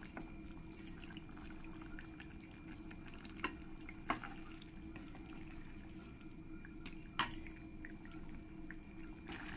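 Faint sounds of a spatula stirring a simmering fish curry in a nonstick wok: a few soft taps and clicks of the spatula against the pan over a steady low hum.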